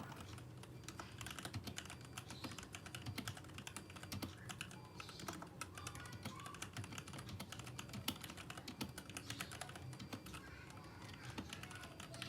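Typing on a Vortex Series VX64 mechanical keyboard fitted with thick PBT OEM-profile keycaps: a fast, irregular run of faint key clacks.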